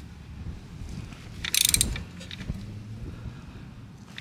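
Socket ratchet clicking in one quick run of ticks about a second and a half in, as the handle is swung back while tightening the oil drain bolt snug.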